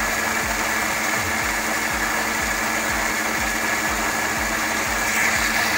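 Electric mixer grinder with a stainless-steel jar running at a steady speed, blending oats, seeds, dry fruit and peanut butter in water into a smooth drink.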